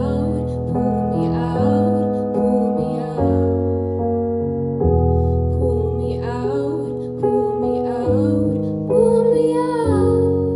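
A woman singing a slow song over piano accompaniment: sustained piano chords with a low bass, and her voice coming in in short phrases.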